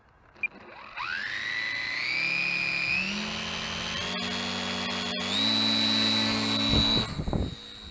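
RC plane's small electric motor and nose propeller spinning up to a high whine. It rises in pitch, steps up twice as the throttle is pushed higher, then cuts back near the end with a few low thumps.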